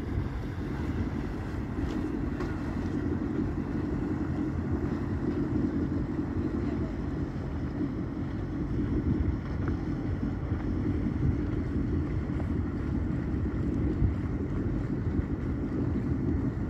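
Motorboat engine running steadily under way, mixed with wind buffeting the microphone.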